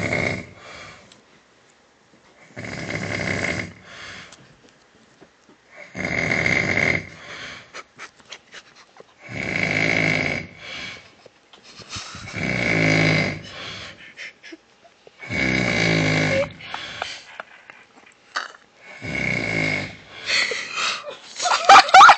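A man snoring close into a microphone, one loud snore about every three seconds, seven in all, each trailed by a weaker breath. Near the end comes a louder, irregular burst of sound with sliding pitches.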